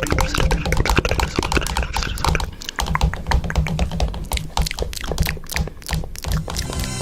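Music remix built from Samsung phone sound effects: rapid tapping clicks over a repeating low bass pattern.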